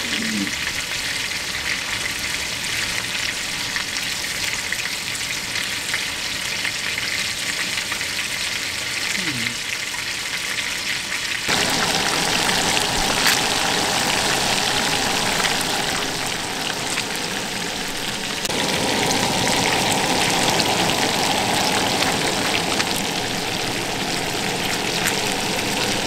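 Skin-on striped bass fillets frying in hot oil in a skillet, a steady sizzle that gets louder about halfway through.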